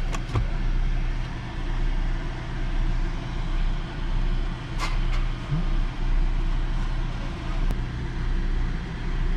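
Car engine idling, a steady low hum heard from inside the car, with a few light clicks.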